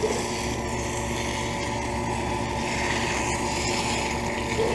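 York central air conditioner's outdoor condensing unit running: a steady compressor hum with the condenser fan's even whoosh, and a few faint clicks past the middle.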